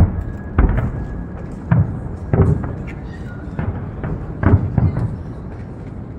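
A series of deep, irregular booms, roughly one every half second to a second, each with a short ringing tail, over a steady background din.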